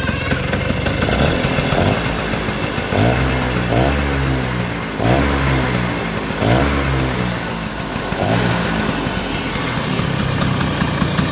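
Vespa Super's two-stroke single-cylinder engine running with a freshly welded intake manifold and a newly trued crankshaft. It is revved in about seven short throttle blips, then settles back to a steady idle in the last few seconds.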